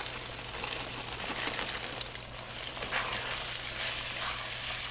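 Ground beef gravy with frozen corn, peas and carrots sizzling in a hot pan while a wooden spoon stirs it, with a few scrapes and clicks of the spoon against the pan.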